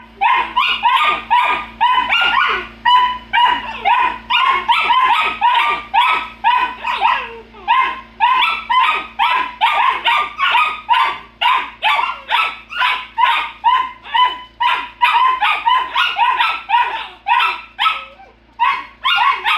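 Two golden retriever puppies barking and yapping back and forth at each other in play, a rapid string of loud barks at about two or three a second, with a short pause near the end.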